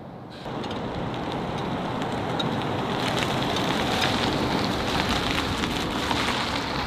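Police pickup truck towing a twin-axle dog kennel trailer drives past: a steady rushing noise of tyres and rolling trailer that starts about half a second in and grows louder over the next few seconds.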